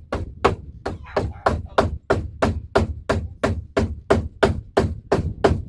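Mallet striking repeatedly at an even pace, about three blows a second, knocking the door header into place until it sits flush.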